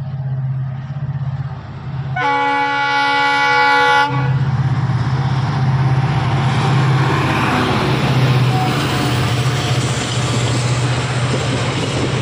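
Diesel locomotive approaching with a steady engine hum and sounding its multi-tone horn for about two seconds. It then passes close by, and the engine gives way to the loud rumble and clatter of passenger coaches running over the rails.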